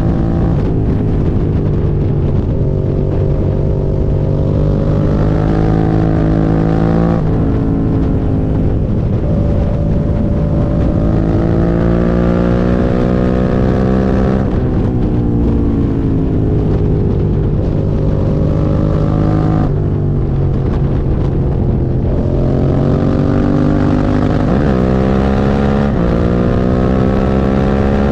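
Suzuki SV650's 645 cc V-twin engine under way, accelerating through the gears: its pitch rises steadily, then drops sharply at each shift, about five times. The bike has a misfire, per its owner.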